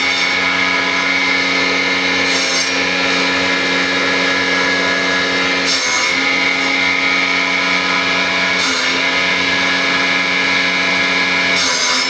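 A woodworking power tool's motor running steadily at constant pitch. About every three seconds a short higher hiss comes in and the motor's pitch dips slightly, as when the tool briefly bites into wood.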